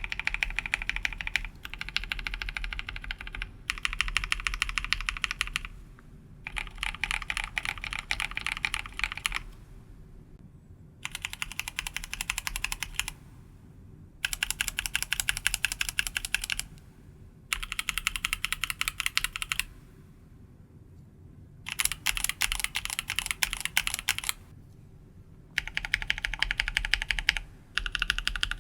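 Mechanical keyboard with lubed and filmed linear switches being typed on rapidly, in bursts of dense keystroke clacks lasting a second or two each, separated by short pauses.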